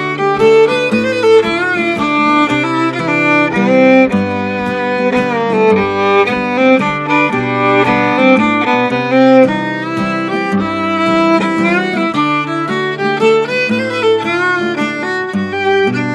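Old-time fiddle tune played on fiddle and acoustic guitar: a quick, busy fiddle melody over the guitar's strummed chords and stepping bass notes.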